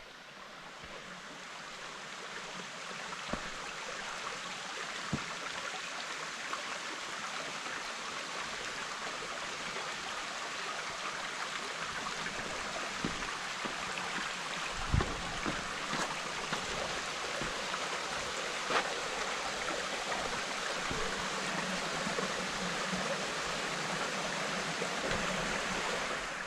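Steady rush of running water from a small waterfall and creek. It grows louder over the first few seconds and then holds even, with a few scattered knocks and one low thump about halfway through.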